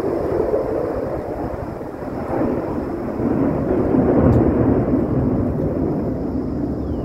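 Jet aircraft passing overhead: a loud, rolling roar that swells to its peak about four seconds in.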